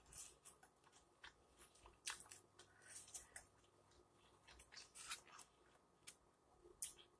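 A person chewing chicken flautas topped with shredded lettuce, heard close up: faint, scattered mouth clicks and soft crunches. The flautas have lost their crispness.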